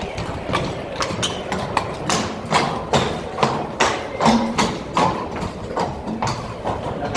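Horse hooves clip-clopping at a walk: a steady beat of about two or three hoofbeats a second, from a bullfighting rejoneador's horse.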